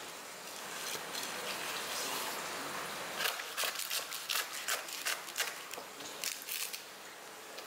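A long knife slicing along a raw tuna loin, trimming off a strip of skin and sinew: a run of short wet crackles and ticks starting about three seconds in, over a steady faint hiss.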